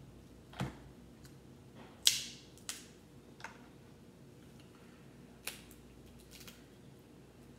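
Cooked crab leg shells cracked and snapped apart by hand: about five sharp cracks, the loudest about two seconds in.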